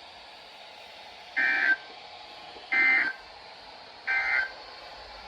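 Emergency Alert System SAME data bursts from NOAA Weather Radio: three short, identical warbling digital tone bursts about 1.4 seconds apart. Sent right after the spoken warning, they are the end-of-message code marking the close of the alert.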